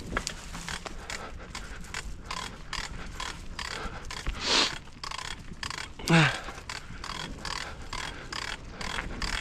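Mountain bike rolling over a dirt singletrack, the bike rattling with a steady run of small knocks about three a second. A short hiss comes about four and a half seconds in, and about six seconds in the rider lets out a short grunt that falls steeply in pitch.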